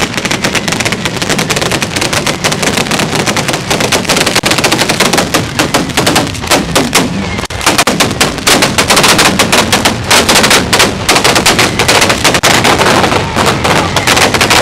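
Ground-level firecracker battery going off in a rapid, unbroken chain of loud bangs, like machine-gun fire. It dips briefly about seven and a half seconds in, then comes back denser and louder.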